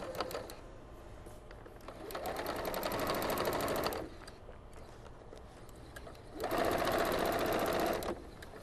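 White Singer electric sewing machine stitching a straight seam through layers of fabric, in two runs of rapid, even needle strokes: one starting about two seconds in and stopping about two seconds later, the second starting after a short pause and stopping near the end.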